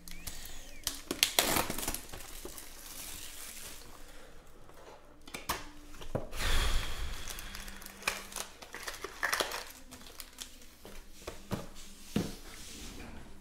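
Plastic wrapping crinkling and cardboard trading-card boxes being handled and opened by hand, in several irregular bursts of crackly rustling.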